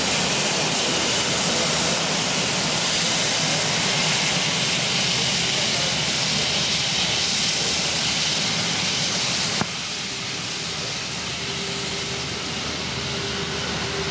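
Airbus A350-900's Rolls-Royce Trent XWB turbofans running at low taxi thrust: steady jet engine noise with a strong hiss. The level drops abruptly about ten seconds in.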